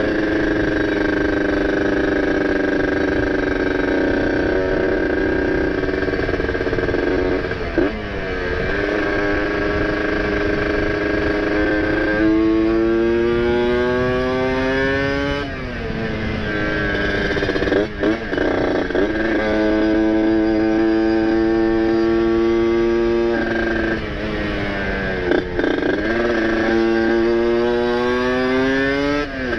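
Kawasaki Ninja RR 150cc two-stroke single, with a ported cylinder, PWK 30 carburettor and ABRT20 aftermarket exhaust, pulling hard. The engine note climbs in pitch and drops sharply at each gear change, several times over.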